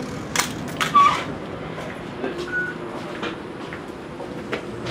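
Inside a tram: scattered clicks and knocks of handling and movement, two short electronic beeps about a second and two and a half seconds in, and a steady hum from the tram that sets in a little after two seconds.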